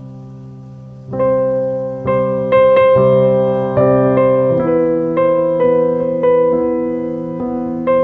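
Background piano music: a slow melody of single held notes, each struck and then fading, growing louder about a second in.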